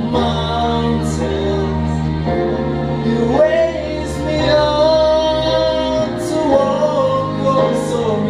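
A male singer singing a slow song into a handheld microphone over a backing track, holding long notes over sustained bass chords, heard through the hall's sound system.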